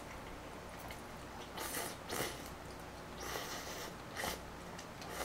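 Close-up slurping of noodles from spicy malatang broth: about four short, hissy slurps, with chewing between them.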